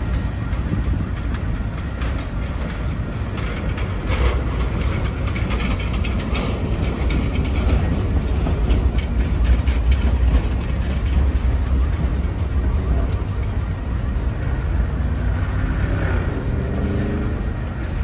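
Freight cars (tank cars and hoppers) rolling past close by, with a steady low rumble of wheels on rail. A cluster of sharp clicks comes about four seconds in, and a brief falling whine near the end.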